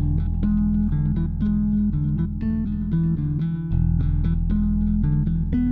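Background music: quick plucked guitar notes over a steady bass line.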